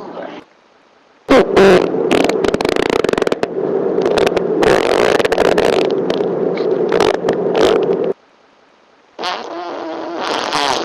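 A long, loud fart with a steady buzzing pitch and rapid flutter, starting about a second in and lasting about seven seconds before cutting off. After a short gap, another fart begins near the end.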